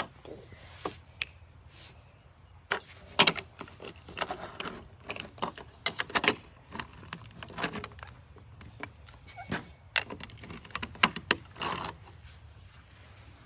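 Small hard plastic toys being handled, giving irregular sharp clicks and clacks.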